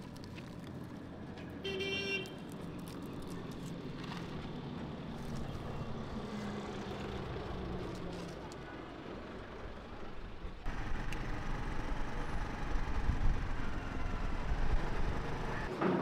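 City street traffic: vehicles running past on the road, with a short vehicle horn toot about two seconds in. The traffic gets louder and deeper in rumble about two-thirds of the way through.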